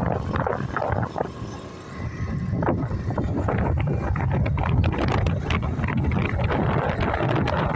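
Wind buffeting the microphone on a moving motorcycle, over the bike's engine and road noise, with a brief easing about two seconds in.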